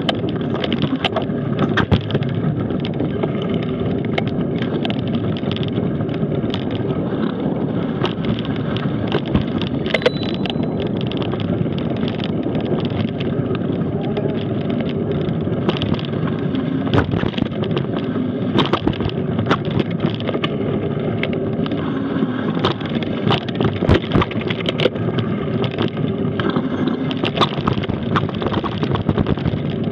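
Mountain bike rolling fast over a rocky dirt trail: a steady rumble of tyres and wind on the microphone, with frequent sharp clicks and knocks as the bike rattles over stones.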